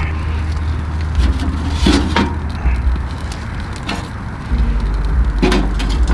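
A few sharp knocks and cracks, twice about two seconds in and once more near the end, over a steady low rumble.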